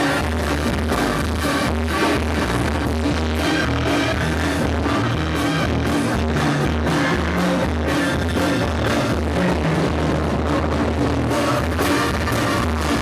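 Banda sinaloense music played live by a brass band with clarinets and a tuba, a lead singer over a steady pulsing tuba-and-drum beat.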